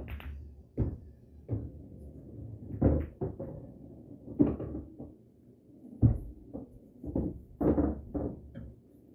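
Pool balls scattering after the 8-ball break on a Valley bar-box table: a string of separate sharp clacks and knocks as balls collide with each other and hit the cushions, irregularly spaced, the loudest about six seconds in.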